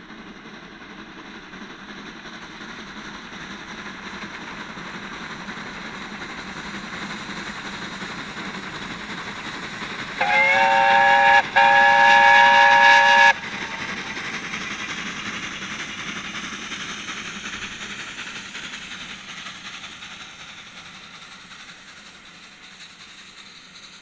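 USATC S160 2-8-0 steam locomotive No. 2253 'Omaha' whistling twice about ten seconds in, a short blast and then a longer one, several notes at once with a brief upward slide at the start. Its train of coaches rolls past, growing louder and then fading.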